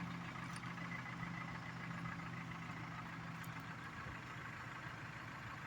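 Backhoe loader's diesel engine running steadily, a low even hum.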